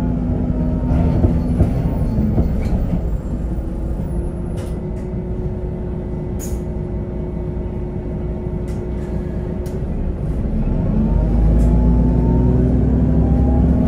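Cummins ISB6.7 six-cylinder diesel of an Otokar Vectio C city bus, heard from inside the passenger cabin. It runs quieter for several seconds, with a few rattles and clicks. About ten seconds in it loads up with a louder low rumble and a rising whine as the bus accelerates.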